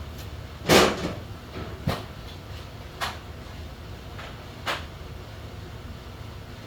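Metal tools knocking and clinking while a socket is picked out of a tool drawer: one loud clack about a second in, then three lighter clinks.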